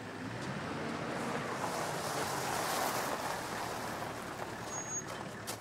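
A four-wheel drive pulling up on a dusty dirt driveway: a rushing noise of tyres and engine that swells a couple of seconds in and then eases off.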